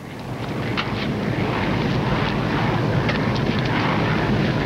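Steady roar of aircraft engines heard in a passenger cabin, swelling up over the first second and then holding even.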